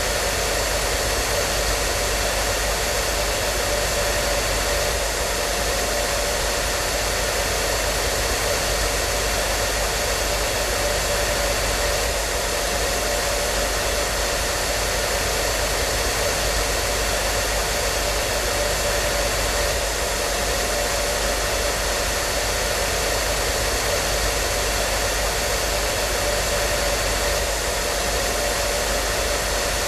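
Hair dryer running steadily: an even, unchanging blowing hiss with a steady motor hum underneath.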